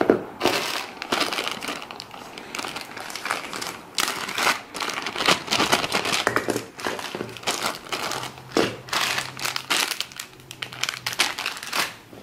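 Clear plastic zip bags of action-camera mounts crinkling in irregular bursts as they are handled and shuffled.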